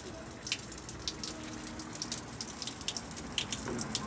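Water dripping steadily onto a wet floor: irregular drops several times a second over a low hiss of running water.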